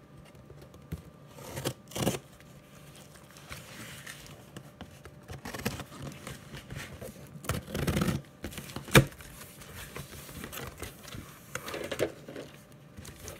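A corrugated cardboard shipping box being handled and opened by hand: scattered scraping and rustling of cardboard as its flap is pulled open, with a sharp knock about nine seconds in.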